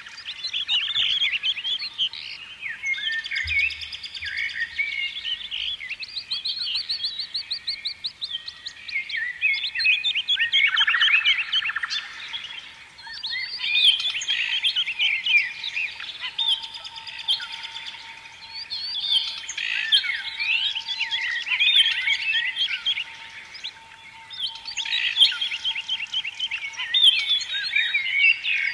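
Many small birds chirping and twittering together, a dense chorus of short overlapping calls that keeps going with only brief lulls.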